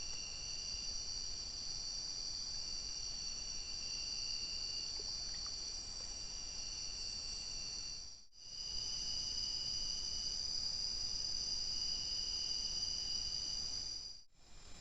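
Steady chorus of insects: continuous high-pitched trilling, with a lower trill that comes and goes. It drops out briefly about halfway through and again near the end.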